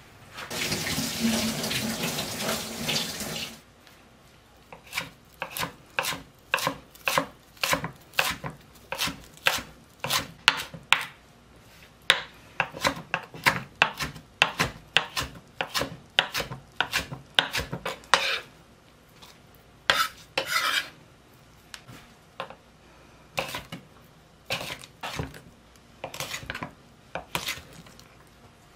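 About three seconds of splashing water as washed parsley is drained, then a kitchen knife chopping parsley on a wooden cutting board in quick, even strokes about two a second. Near the end, slower scattered cuts as the knife slices wieners into chunks on the board.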